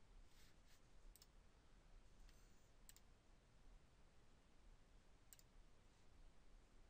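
Near silence broken by a few scattered, sharp computer mouse clicks.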